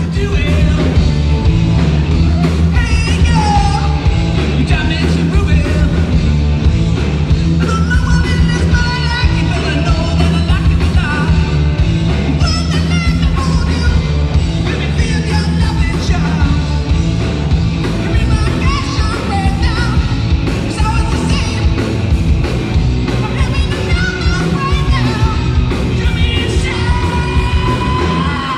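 A live rock band playing loud through a PA: electric guitars over a drum kit, with bending melodic lines above a heavy low end.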